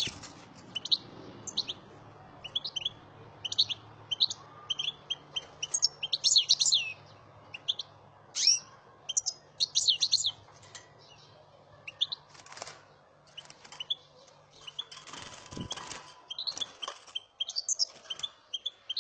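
Caged finches chirping and twittering in quick bursts of short, high, sharp calls. A rustle and a knock are heard on the cage about three-quarters of the way through.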